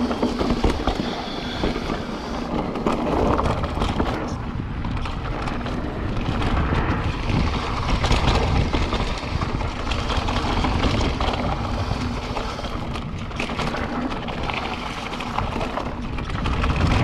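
Mountain bike riding down a dirt trail: wind buffeting the microphone over the steady rush of tyres on dirt, with many small clicks and rattles from the bike.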